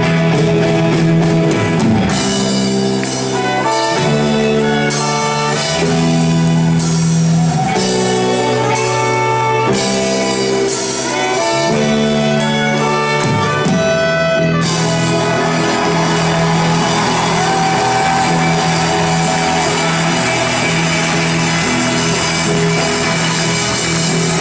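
Live pop band with a horn section of trumpet and saxophones playing a rhythmic riff of short, punchy chords; about fourteen seconds in the band breaks into a full, sustained sound. Heard from the audience of a large hall.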